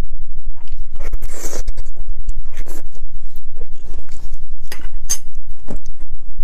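Close-miked scraping and rustling as plastic-gloved hands handle roasted beef marrow bones and a knife scrapes at the bone: a run of small clicks, with louder scraping bursts about a second in and again near the end, over a steady low hum.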